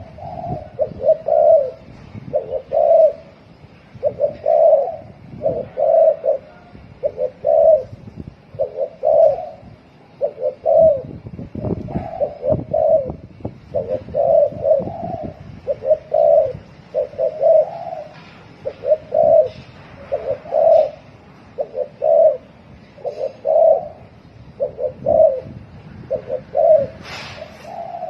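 Spotted dove cooing fast in the 'thổ còi' style, its short coo phrases repeated about once a second. A brief sharp sound comes near the end.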